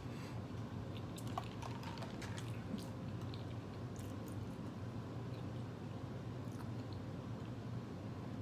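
A person chewing food, with faint soft mouth clicks, most of them in the first few seconds, over a steady low hum.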